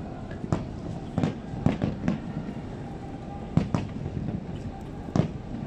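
Aerial fireworks shells bursting: about eight sharp bangs at uneven intervals, some in quick pairs, over a steady low rumble.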